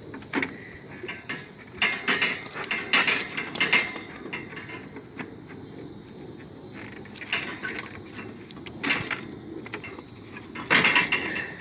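Irregular metallic clanks, knocks and rattles as the metal parts of an ice maker are worked loose by hand for scrap, with a louder burst of clanking near the end.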